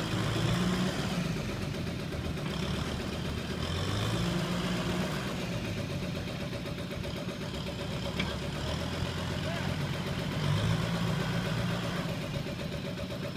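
Kubota M6040SU tractor's diesel engine running under load as it drags a loaded trailer through deep mud, revving up and easing off several times.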